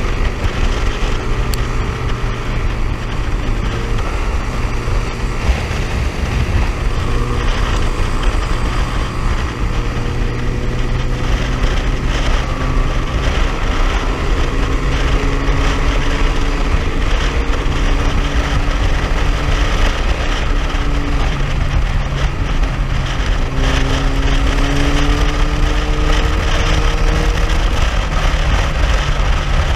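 A motorcycle engine droning steadily while riding, its note slowly rising and falling, under heavy wind noise on the microphone.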